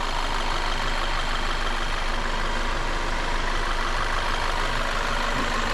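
Volkswagen Tiguan's EA888 2.0 turbocharged four-cylinder engine idling steadily, running smoothly after its replacement.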